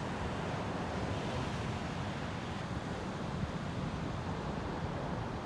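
Steady ocean surf washing at the shoreline, mixed with wind noise on the microphone. It is an even, unbroken rush with no distinct events.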